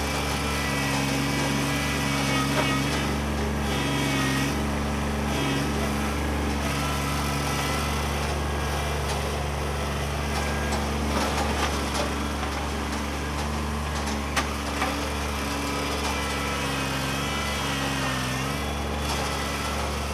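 Kubota B2601 compact tractor's three-cylinder diesel engine running steadily while the front stump bucket digs at the roots around a stump, its tone dipping and rising at times under load. A couple of sharp knocks come about two-thirds of the way through.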